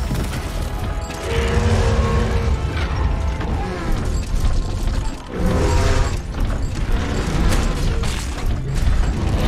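Mechanical sound effects for an animated robot Tyrannosaurus moving, with music underneath.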